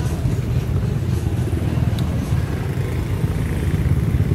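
Motor scooter engine idling with a steady low rumble.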